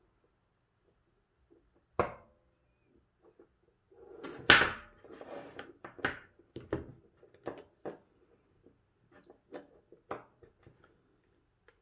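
Cylindrical lithium-ion battery cells handled and knocked against each other and the wooden tabletop: a sharp knock about two seconds in, a louder clatter near the middle, then a run of short knocks and taps.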